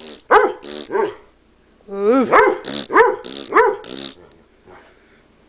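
Dog barking in a vocal, back-talking way: a few arching barks, a short pause, then a drawn-out sliding whine-bark followed by a quick string of about six barks that stops a little after four seconds in.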